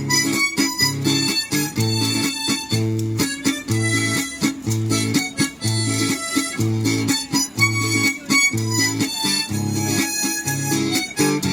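Harmonica playing a melody over acoustic guitar accompaniment, the guitar keeping a steady, even rhythm of low notes beneath it.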